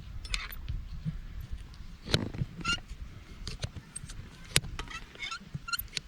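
Irregular knocks, clicks and scrapes from hand tools cutting a donkey's overgrown, very hard hoof, with a few short high chirps scattered among them.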